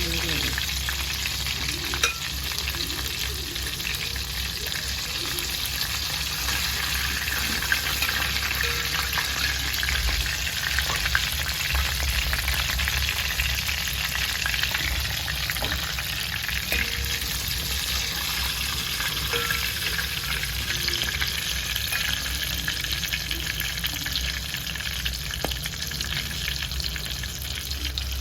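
Battered chicken pieces deep-frying in hot oil: a steady, dense sizzle with fine crackling, and a few sharper clicks.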